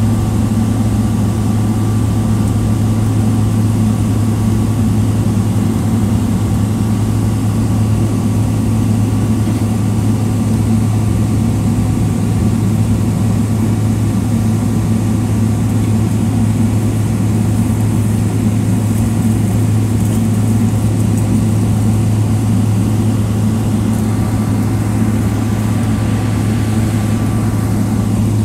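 Cabin noise of a Boeing 777-300ER taxiing, its GE90-115B engines running at idle thrust: a steady low hum with a faint high whine over it.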